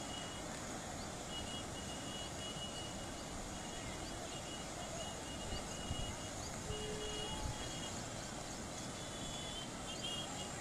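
Steady rushing roar of a river in flood, with faint on-and-off high beeping tones over it.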